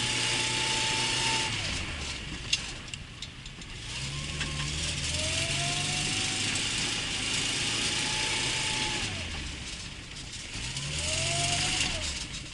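Lada Zhiguli's four-cylinder engine revved hard in three surges, each rising, holding high and then dropping back, over a steady hiss, with a few sharp clicks about two and a half seconds in. This is typical of the driven wheels spinning without grip on ice.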